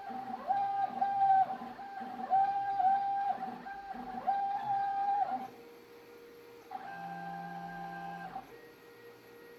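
Stepper motors of a CNC writing machine whining as it moves. The pitch slides up and down as the axes speed up and slow between strokes, and stops and starts. After a short pause comes a steadier hum of several tones.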